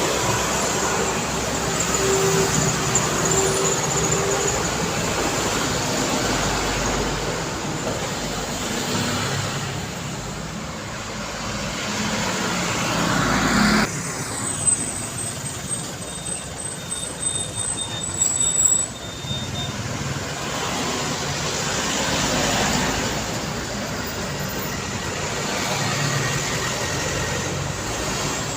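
Busy city road traffic: cars and trucks passing in a continuous stream, the noise swelling and fading as each goes by. About halfway through, the rush of one close pass builds and then cuts off abruptly, followed by a few short knocks.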